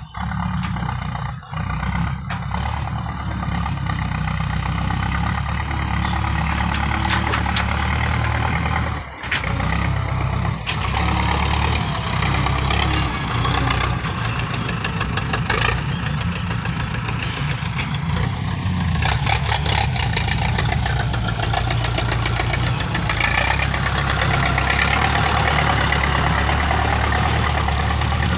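A vehicle engine running steadily, with a low drone and a noisy wash over it, briefly dropping out twice, about one and a half and nine seconds in.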